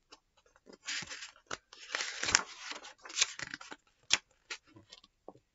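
Paper pages of a picture book being turned and handled: rustling and crinkling, with a few sharp clicks.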